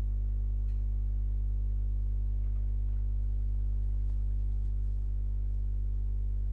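Steady low electrical hum, a mains-frequency buzz with a stack of overtones, running unchanged on the recording. A few faint clicks sit on top of it.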